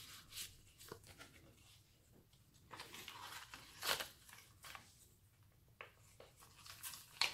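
Paper and card rustling and crinkling as the cards and book-paper pages of a handmade junk journal are handled, with sharper crackles about four seconds in and again near the end.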